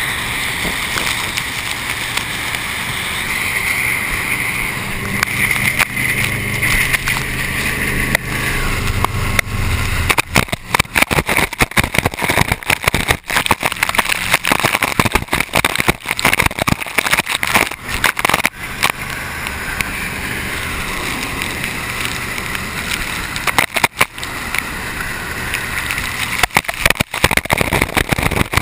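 Speedboat running fast, heard from a camera on the hull at the waterline: rushing, hissing spray off the hull and wind buffeting over a steady engine drone. From about ten seconds in, the sound turns choppy and irregular as spray and water hit the camera.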